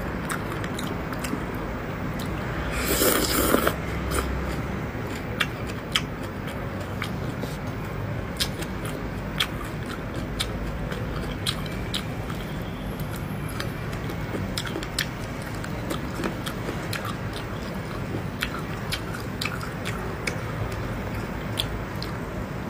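Close-up chewing and biting of raw fish slices with shredded onion and herbs: wet mouth smacks and many small sharp clicks, with a brief louder rush of air about three seconds in.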